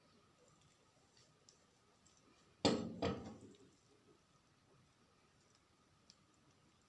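Two sharp knocks, a little under half a second apart, about two and a half seconds in, among faint scattered clicks: a hard kitchen object being put down or tapped.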